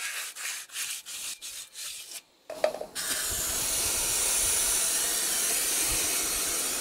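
Sandpaper rubbed over drum-brake shoe linings in quick repeated strokes, sanding off the burr blamed for a rear brake squeal. After a brief break comes a steady spray hiss: brake cleaner being sprayed onto the brake parts.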